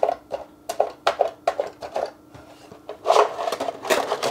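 3.5-inch floppy disks in the slotted plastic rack of a diskette holder, flicked forward one after another, each clicking into place at about two or three clicks a second. About three seconds in, a louder stretch of plastic rattling and scraping as disks are worked out of their slots, which hold them snugly.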